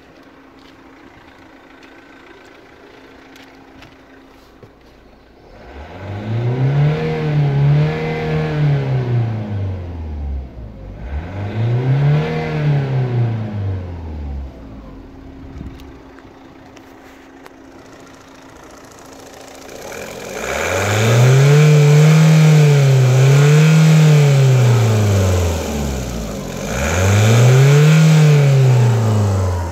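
Opel 1.7 CDTI four-cylinder turbodiesel idling, then revved by the throttle four times, its pitch rising and falling with each rev. The third rev is held high for several seconds, longer than the others.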